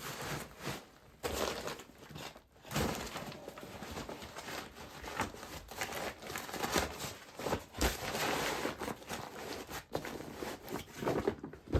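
Crinkling and rustling of a lightweight fabric stuff sack being squeezed round and pushed down into a frameless Trail Bum Big Turtle Ultra backpack, with a few soft knocks as it is packed in.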